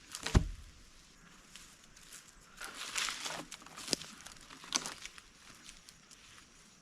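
A sharp knock near the start, then a stretch of rustling and two more sharp clicks, the kind of knocks and rustles made by moving about and handling wood outdoors.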